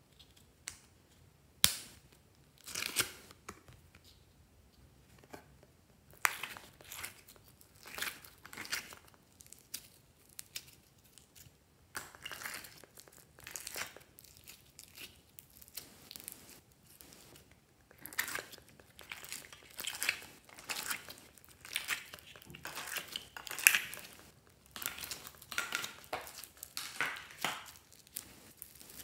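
Foam-bead clay (floam) being pulled out of a plastic tray and squeezed by hand: a run of irregular crackling and crinkling bursts, with a sharp click about two seconds in.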